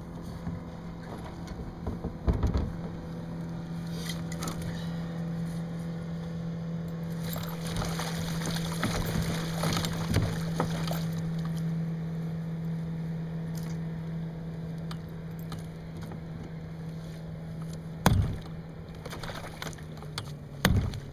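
Gear rattling and knocking in a kayak as a freshly landed coho salmon is handled in the landing net, over a steady motor hum. Near the end come two sharp knocks, a wooden fish club being used.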